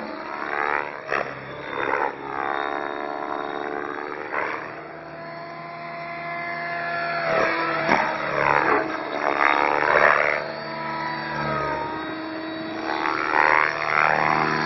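Align T-Rex flybarless radio-controlled helicopter in flight: the whine of its rotors and drivetrain, its pitch swooping up and down again and again as it moves back and forth.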